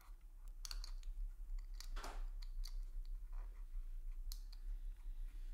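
Faint small clicks and short scrapes of a watch crown and winding stem being fitted into a steel watch case and turned by hand, as the fit of the freshly shortened stem is checked.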